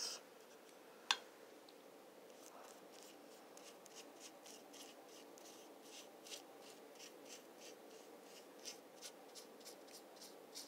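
Paintbrush stroking and dabbing white paint onto a moulded pedestal: a faint run of short, scratchy brush strokes, a few a second, after a single click about a second in.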